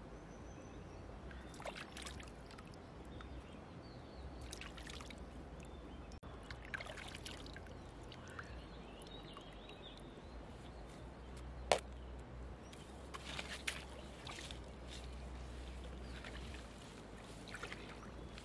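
Shallow river water sloshing and splashing in short bursts, with scattered knocks and one sharp click near the middle, over a steady low rumble.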